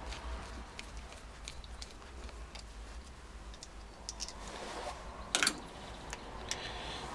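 Light, scattered metallic clicks and ticks of a screwdriver turning out the two screws that hold the solenoid on a Bosch starter motor, with one short, louder clink about five and a half seconds in.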